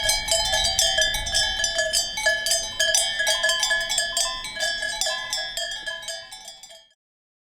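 Cowbells clanging in quick, irregular, overlapping strikes, fading away near the end.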